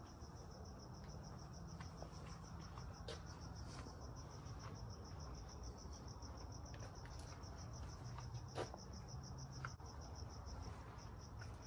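Crickets chirping faintly in a steady, evenly pulsed high trill, with a few faint clicks, the clearest about eight and a half seconds in.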